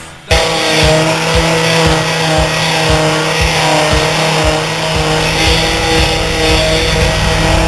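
A car engine running steadily, starting abruptly just after a cut.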